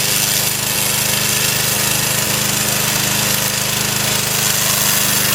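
Remote-control lawn mower running steadily, its engine giving a constant hum with a fast rattle over a broad hiss.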